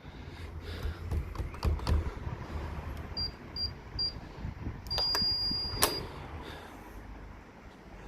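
Handling knocks, then three short electronic beeps about half a second apart, then one longer beep about a second long with a sharp click as it starts and as it stops. This is a newly fitted door electric release being tested: beeps from the access-control unit, and the release clicking open and shut again.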